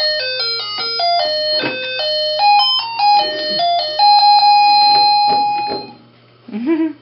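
Electronic toy phone playing a beeping tune of single stepped notes. The tune ends in one long held note that cuts off about six seconds in. A baby makes a short vocal sound near the end.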